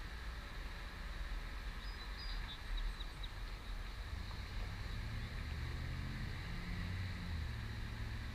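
Low engine hum that swells about halfway through, over a steady low background rumble, with a few brief high chirps about two to three seconds in.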